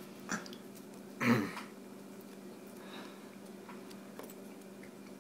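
A short vocal sound from one of the men about a second in, a falling grunt-like sound, then quiet room tone with a faint steady hum.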